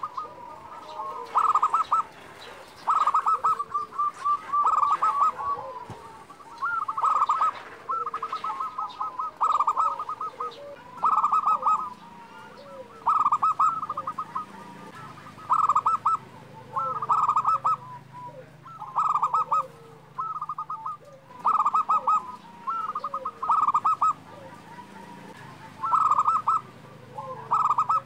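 Zebra dove (perkutut) cooing: a rapid stuttering coo repeated about every second and a half, with softer rolling coos between.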